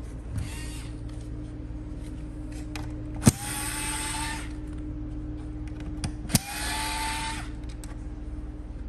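Small electric screwdriver running in two short bursts of about a second each, each opening with a sharp click, backing out the screws that hold the power switch.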